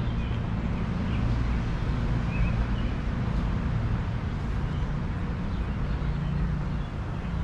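Outdoor park ambience: a steady low rumble with a few faint, brief bird chirps.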